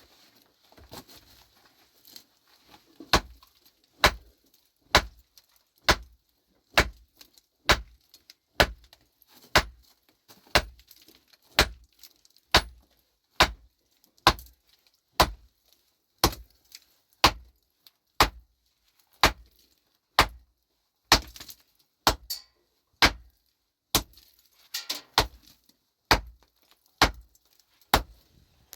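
A pickaxe striking rocky ground over and over, about one heavy blow a second, each with a sharp clink, starting a few seconds in.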